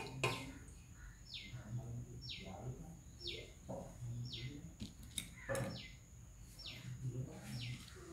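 A bird calling over and over, each call one short falling note, about once every three-quarters of a second, with a faint steady high whine behind it.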